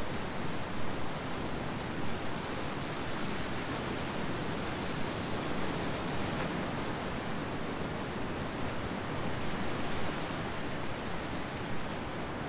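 Ocean surf washing on a beach, a steady rushing hiss with no distinct breaks or crashes.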